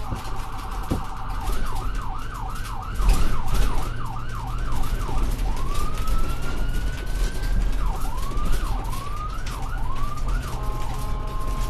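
Electronic emergency-vehicle siren cycling through its patterns: a steady chord-like tone, then a fast yelp of repeated up-and-down sweeps about twice a second, one slow rising wail, more yelp, and the steady tone again near the end, over a low rumble.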